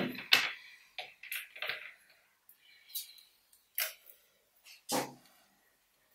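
Scattered clicks and knocks from a plastic computer speaker and its cables being handled, with a firmer knock about five seconds in.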